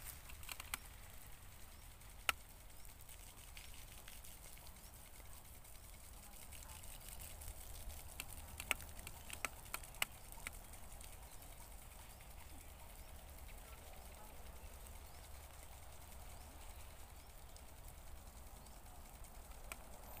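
Quiet outdoor ambience with a faint low rumble, broken by a few sharp clicks: one about two seconds in and several close together around the middle.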